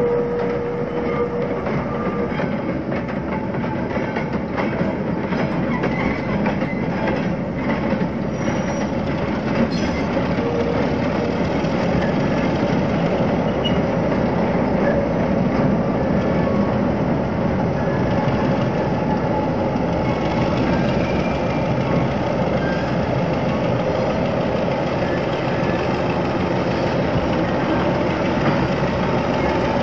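Train running along the track, a steady rumble of wheels on rail with some clickety-clack, getting a little louder about twelve seconds in.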